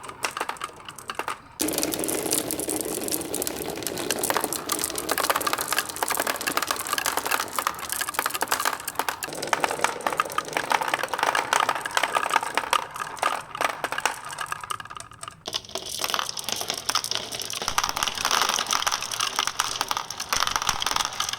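Many marbles rolling and clattering down wooden HABA marble-run slopes: a dense stream of small clicks and knocks over a rolling rumble. It gets louder about a second and a half in and drops off briefly near fifteen seconds before picking up again.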